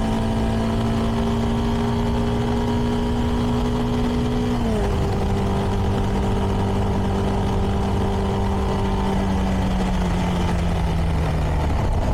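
CFMoto 300NK's single-cylinder engine through its stock exhaust, heard while riding: a steady engine note that drops abruptly about five seconds in, then sinks slowly.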